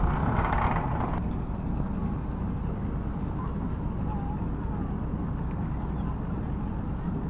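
Engine of a kapal kempang, a small wooden passenger motorboat, running steadily as a low, even hum. A louder rush of noise sits over it in the first second or so.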